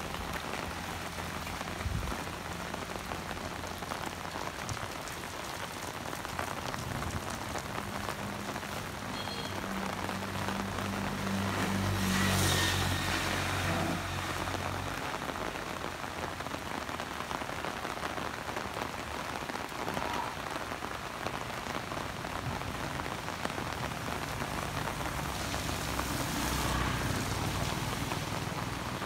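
Heavy rain falling steadily on a flooded street. Around the middle a motorbike rides through the standing water, its engine hum rising along with a hiss of spray. A second motorbike passes near the end.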